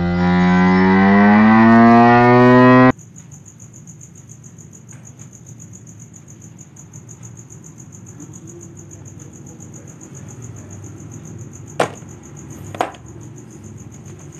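Hippopotamus bellowing, one long call rising in pitch that cuts off sharply about three seconds in. Then crickets chirring steadily, with two sharp clicks about a second apart near the end.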